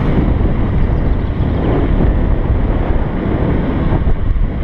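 Wind rushing over an action camera's microphone as a mountain bike rolls at speed on asphalt, with tyre rolling noise underneath: a loud, steady, low rush.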